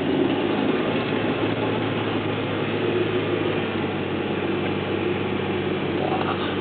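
A 2004 Honda Civic Si hatchback's 2.0-litre four-cylinder engine running steadily at a low constant pitch while the car is driven, heard from inside the cabin with road and tyre noise.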